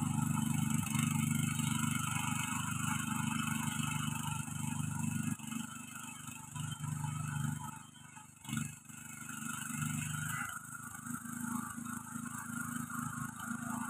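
Mini cultivator engine running as its rotary tines work through dry, grassy soil. The engine note drops about five seconds in, dips lowest near the middle, then picks up again as the machine is turned at the end of the row.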